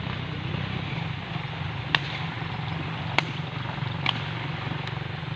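Wind blowing across the microphone, a steady low rumble, with three short sharp clicks about two, three and four seconds in.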